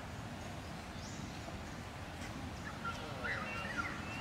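Steady low background rumble with a few short, high chirping calls about three seconds in.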